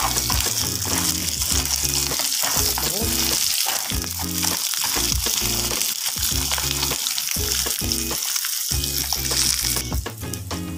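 Shore crabs sizzling in hot oil with garlic and ginger in a frying pan as they are stirred. The sizzle drops off shortly before the end.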